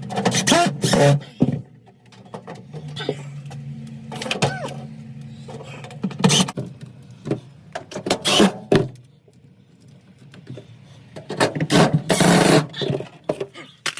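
Hands working on a freezer's thermostat and wiring: irregular clatter, clicks and rustling in several separate bursts, the longest and loudest near the end, with a faint low hum in the first half.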